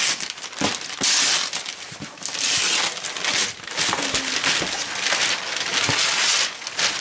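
Wrapping paper being ripped off a cardboard gift box and crumpled, in a series of rips and rustles.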